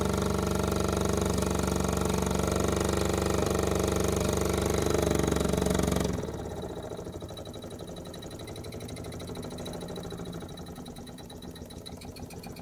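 Mamod TE1A toy steam engine running fast on a gas burner, a steady loud buzzing with a rapid beat. About six seconds in, as the gas is turned down, the sound drops sharply and the engine runs on more quietly.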